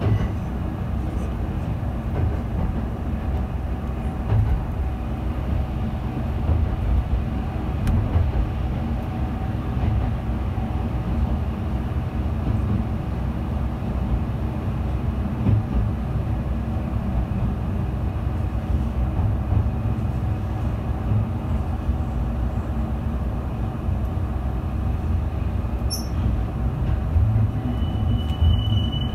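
Yuri Kogen Railway YR-2000 diesel railcar under way, heard from inside the car: a steady low rumble of the engine and the wheels on the rails. A brief high steady tone sounds near the end.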